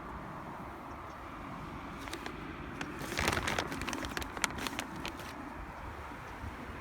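Steady outdoor background hum, with a run of light clicks and rustles from about two to five seconds in, as of something being handled.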